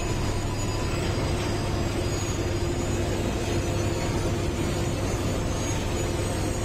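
Railway track-laying machine running steadily: an even machine noise with a constant low hum and a faint steady tone above it.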